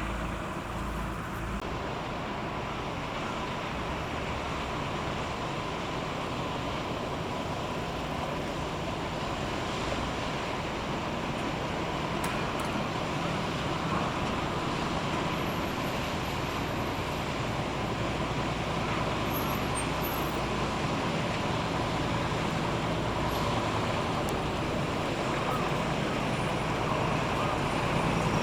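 Steady engine rumble with a faint hum, growing slightly louder toward the end.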